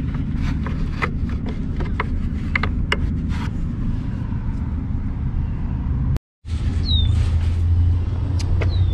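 Steady low rumble of an idling vehicle engine, with small clicks and taps over the first few seconds as the taillight bulbs and housing are handled. After a brief dropout about two-thirds through, the rumble goes on louder, with two short falling squeaks.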